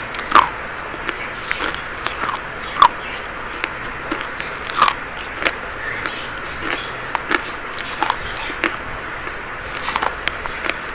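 Dry chalk being bitten and chewed close to the microphone: irregular sharp crunches and snaps, a few a second, some with a short squeaky edge.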